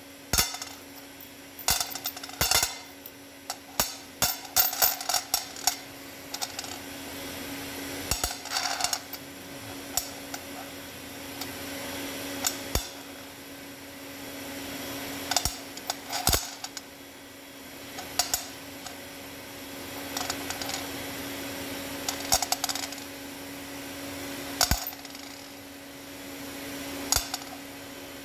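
Steel bolts clinking against one another in the hand and against a steel plate as they are set down one at a time, in irregular sharp clicks. A steady low hum runs underneath.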